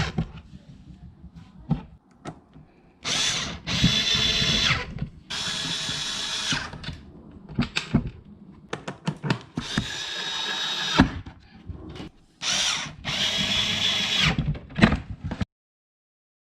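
A small electric motor whines in repeated stop-start bursts of about a second each, with clicks and knocks in between, then cuts off suddenly near the end.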